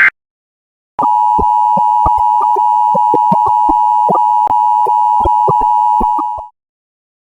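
Emergency Alert System attention signal: the two-tone alarm held steady for about five and a half seconds, then cut off abruptly. Irregular clicks crackle over the tone.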